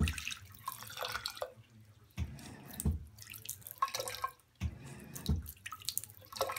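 Motion-sensing bathroom faucet running a thin stream into the sink in three short spells, switching off and on again between them, with splashing and dripping.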